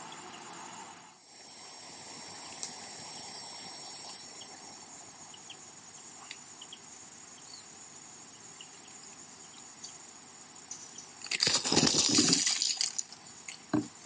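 Steady high hiss from the trail camera's microphone. About eleven seconds in, an animal right at the camera makes a loud burst of rustling and flapping that lasts about a second and a half as it moves off.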